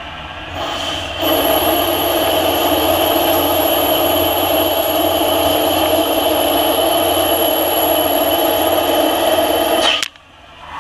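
CNC lathe cutting stainless steel: a steady machining sound with a high whine, starting about a second in and stopping abruptly near the end.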